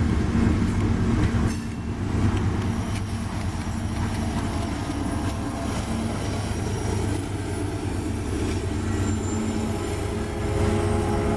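Union Pacific freight train rolling past: a steady rumble of railcars over the rails, with the steady drone of diesel locomotive engines underneath.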